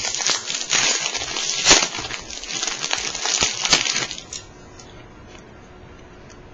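Trading cards being handled and shuffled, with a dense crinkling and clicking of card stock and pack wrapper for about four seconds, loudest a little under two seconds in.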